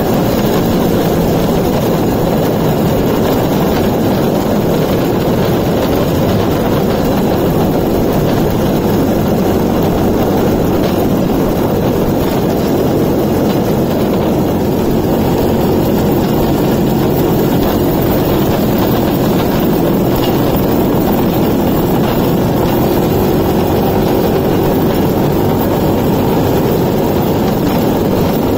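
Homemade rail cart under way: its Suzuki 125cc two-stroke engine runs steadily while the steel wheels roll along the rails, with a slight rise in engine pitch in the second half.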